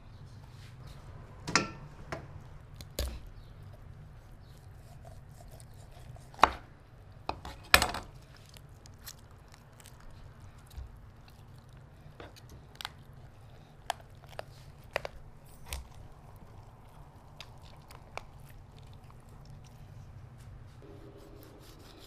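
A knife chopping and cutting through a guinea fowl carcass on a board: irregular sharp knocks, the loudest about six to eight seconds in, over a low steady hum.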